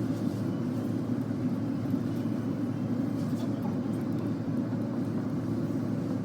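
A steady low rumble of background noise with no distinct knocks or clicks.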